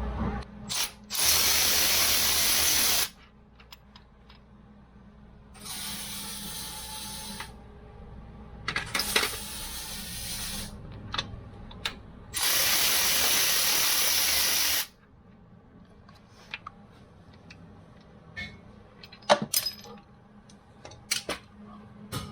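Power tool run in four short bursts of about two seconds each while undoing the rear main bearing cap bolts, with small metallic clicks and taps between the runs.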